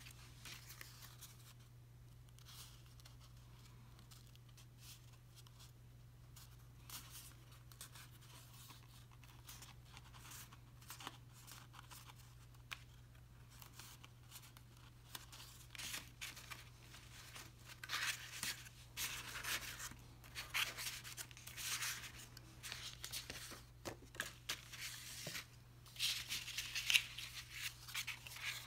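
Stiff card stock being handled, folded and pressed: papery rustling and scraping, faint at first and coming in louder, denser bursts in the second half. A faint steady low hum runs underneath.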